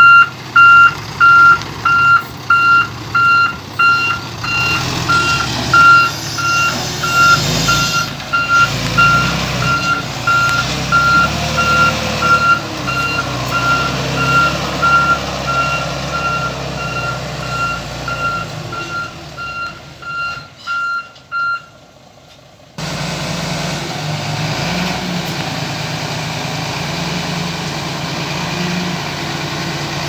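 Dump truck's reversing alarm beeping at one steady pitch, about twice a second, over the running Nissan Diesel engine. The beeping stops about 21 seconds in, and after a short gap the engine runs on steadily.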